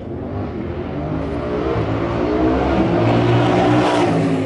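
Yamaha RD500's two-stroke V4 engine revved on the stand, building over about four seconds and easing off near the end.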